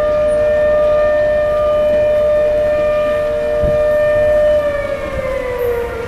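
Outdoor community warning siren holding a steady wail, then winding down in pitch near the end. This is the monthly test of the area's sirens.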